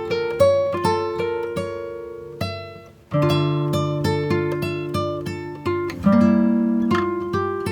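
Background music: acoustic guitar plucking a run of notes, breaking off briefly about three seconds in, then going on with fuller chords.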